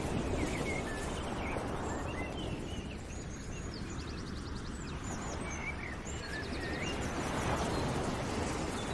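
Small birds chirping, with short curved calls and a couple of quick trills, over a steady low rushing noise.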